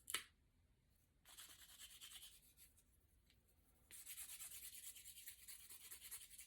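Chopsticks being handled. A sharp click just after the start, a soft brief rustle, then quick, faint, scratchy rubbing strokes from about four seconds in.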